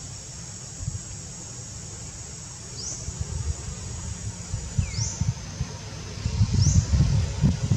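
Steady high-pitched drone of insects, with four short upward chirps over it. Low rumbling thumps come in now and then and grow stronger and louder near the end.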